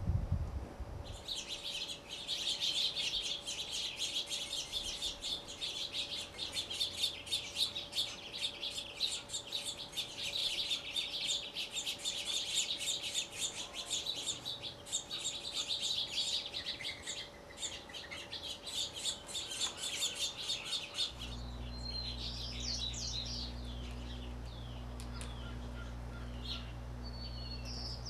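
A dense, continuous chorus of small birds chirping rapidly and high-pitched. About 21 seconds in it gives way to fewer, scattered chirps and whistles over a steady low hum.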